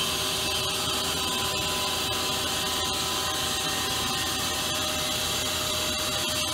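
A powered-up Mazak Quick Turn Nexus CNC lathe running steadily: an even machine hiss with several steady whining tones over it.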